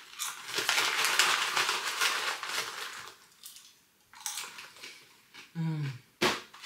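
Crisp freeze-dried strawberry slices being chewed: steady crunching for about three seconds, then a second, shorter spell of crunching after a pause.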